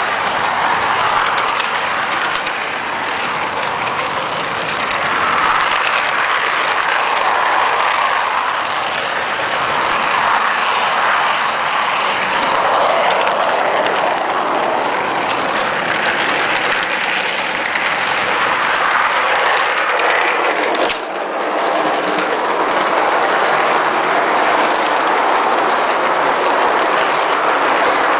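Garden-scale model train rolling along its track, heard from aboard: a steady rush of wheels on rails with some clickety-clack. The sound is broken once by a short click and dip about three-quarters of the way through.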